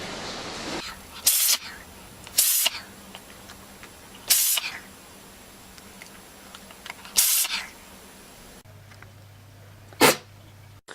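Animals sneezing: five short, sharp, hissing sneezes a second or more apart, the last one the loudest.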